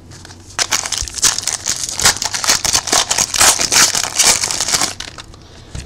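Trading-card pack wrapper crinkling and rustling in the hands as a pack is opened: a dense run of fine crackles from about half a second in until about five seconds in.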